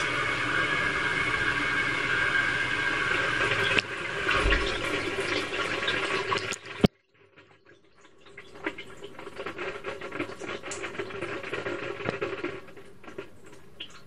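Water rushing into a front-loading washing machine's drum as it fills, heard from inside the drum. The rush cuts off suddenly about halfway, then splashing and trickling build up again.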